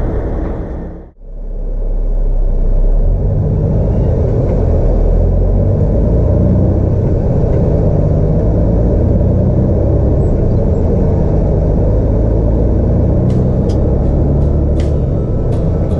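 Semi truck on the move: a steady low rumble of engine and road noise, with a brief dropout about a second in and a few sharp clicks near the end.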